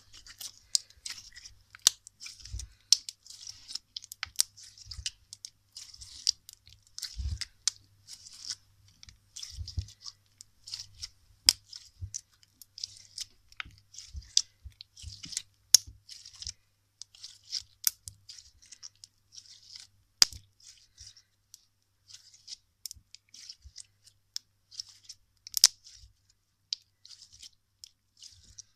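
Clear orange slime squeezed, folded and stretched in the hands, giving off many small irregular pops and clicks as air pockets burst, with a few dull thumps.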